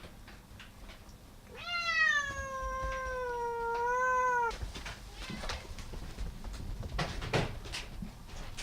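A domestic cat gives one long meow lasting about three seconds, holding a steady pitch with a slight wobble before it stops abruptly. Scattered light clicks and knocks follow.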